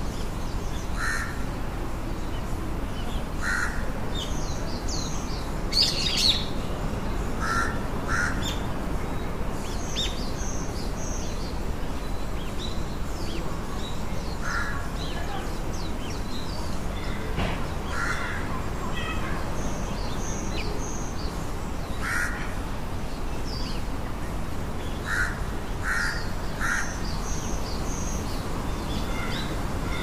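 Crow cawing in short calls every few seconds, with smaller birds chirping high-pitched over a steady low background rumble.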